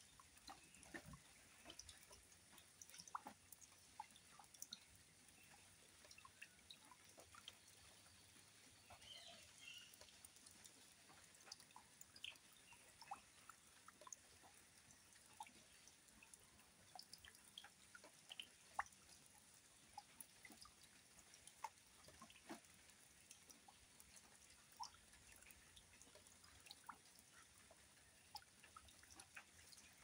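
Water falling into a shallow muddy pool, heard faintly as a soft wash with scattered, irregular drip-like splashes, a few a second.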